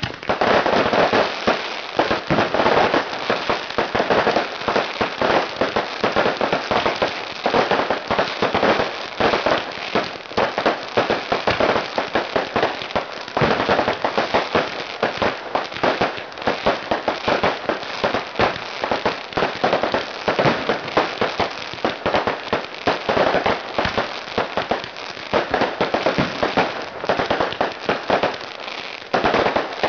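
Close-range fireworks barrage: many shots launching and bursting in quick overlapping succession, a dense run of bangs and crackling that starts suddenly and never lets up.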